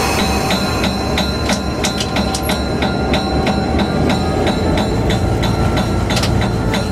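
EMD F3 diesel locomotive's 567 engine running steadily, heard from inside the cab, with frequent sharp clicks and rattles over the low hum.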